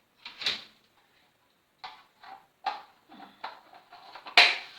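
Hard plastic parts of a ring light's mount being handled and fitted together: a string of short knocks and clicks, the loudest about four and a half seconds in.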